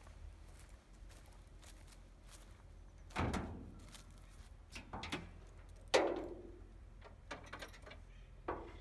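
Hood of a 1991 Toyota Corolla being unlatched and raised: a series of sheet-metal clunks and clicks from the hood and its latch. The loudest clunk, about six seconds in, rings briefly, and a smaller knock follows near the end.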